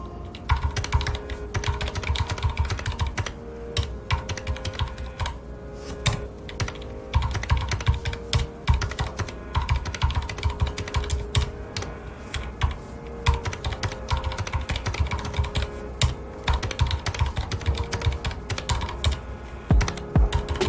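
Continuous fast typing on a mechanical keyboard with red (linear) switches, a dense, irregular run of key clicks and thocks, over soft background music with held notes.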